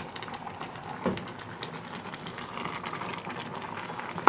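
Pot of sweet potato porridge with vegetables simmering on the stove: soft bubbling with many small scattered clicks and pops, and one sharper click about a second in.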